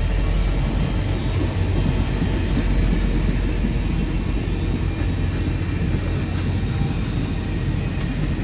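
Union Pacific passenger cars of a steam excursion train rolling past on the rails, a steady rumble of steel wheels on track.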